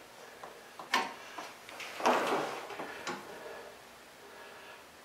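Sharp metal clicks of a chrome Kuryakyn highway peg being handled on its offset bracket on the engine guard, about a second in and again about three seconds in. A louder scuffing clunk comes about two seconds in as a shoe is set on the peg.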